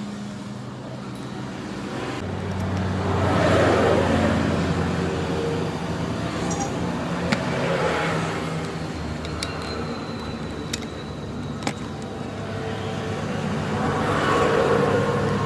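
Road traffic: a steady low engine hum with vehicles passing three times, swelling and fading, and a few sharp clicks in between.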